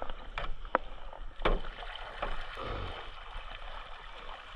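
Kayaks on the water, with a few sharp knocks of paddle against hull amid light water noise, as the boats come in at the end of the run.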